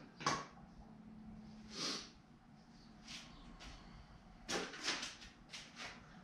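Irregular knocks and scuffs from a mountain bike rear wheel with a 29x3 tyre being handled and set down. There is a sharp knock right at the start, another about two seconds in, and a quick cluster of knocks a little past the middle.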